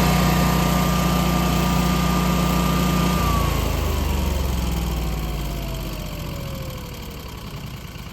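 Honeywell-branded Generac 22 kW Guardian natural-gas standby generator shutting down at the end of its two-minute cooldown. It runs steadily, then cuts off about three seconds in, and its whine falls in pitch as the engine and fan coast to a stop, fading over the next few seconds. The generator is now back to ready-to-run.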